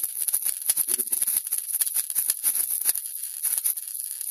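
High-voltage spark discharge crackling and snapping irregularly across the gap between two needle-point electrodes, over a steady high-pitched hiss.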